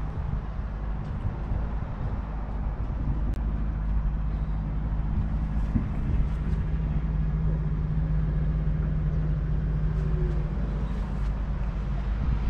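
A JCB Fastrac 2140's 5.9-litre six-cylinder diesel engine idling steadily with a low, even drone.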